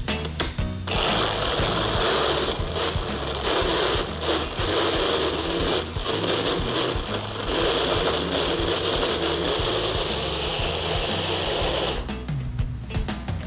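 Hand-held immersion blender running in a tall beaker, puréeing beetroot and tahini into a thick sauce. It starts about a second in and stops about a second and a half before the end.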